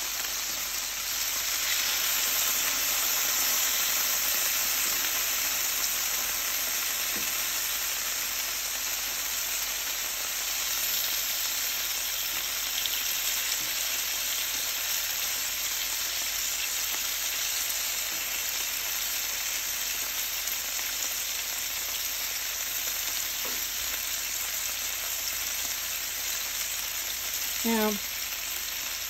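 Thick-cut bacon wrapped around stuffed jalapeños sizzling steadily on a hot Blackstone griddle's flat top, the bacon frying in its own rendered fat.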